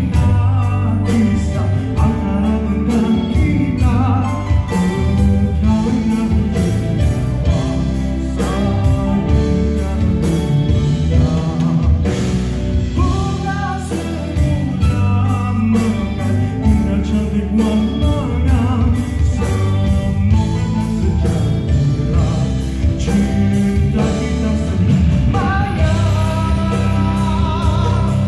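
A live band (electric guitars, drum kit, bass, keyboard, hand percussion) playing a slow Malay pop song, with a male singer singing the melody into a microphone over a steady drum beat.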